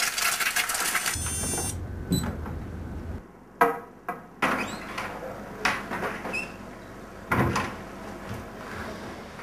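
An egg frying in a pan, sizzling with a hiss that fades out about a second and a half in. Then a china plate is set down on a marble tabletop with a sharp knock, followed by a few more scattered knocks.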